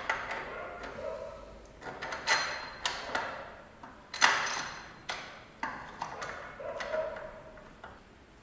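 Metal-on-metal knocks and clinks, about ten irregular strikes each leaving a brief ringing tone, the loudest a little past four seconds in: steel tools working on the motorcycle's steering-head bearing races as they are driven out.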